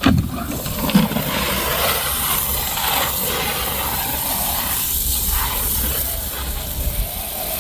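Wind buffeting the microphone: a steady loud rush of noise with gusty low rumbles, cutting off suddenly at the end.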